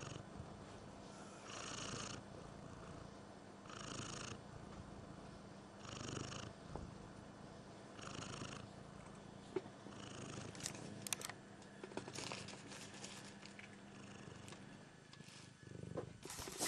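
Domestic cat purring steadily, swelling louder about every two seconds with each breath. From about ten seconds in, sharp clicks and rustling come over the purr.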